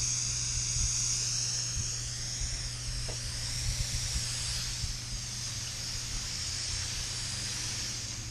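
Garden hose spray nozzle on its mist setting, hissing steadily as a fine spray of water falls on a car's hood.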